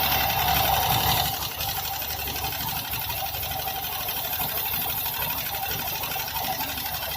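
Honda Dio BS6 fuel-injected scooter engine running at idle with a rapid, even 'kit-kit' ticking from the valve gear, which the mechanic traces to the rocker arms. The noise persists despite a new piston, valves and guides.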